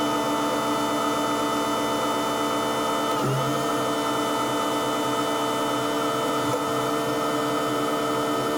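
Grain-handling machinery running steadily while a grain truck is loaded: a constant mechanical whine over a hiss, with a brief change in pitch about three seconds in.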